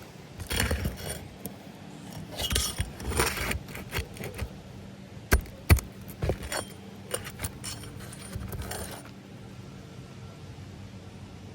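Handling noise of roof repair work: spells of scraping and rustling with small metallic clinks, and two sharp knocks a little past the middle.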